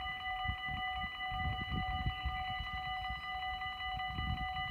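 Dutch level-crossing warning bells ringing continuously in a fast, even stream of high metallic tones, sounding while the half-barriers are down for an approaching train. An irregular low rumble runs underneath.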